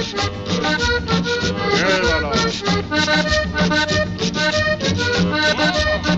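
Cumbia music, an accordion carrying the melody over a steady, driving beat.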